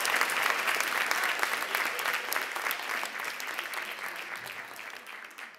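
Large audience applauding, many hands clapping together, slowly fading away toward the end.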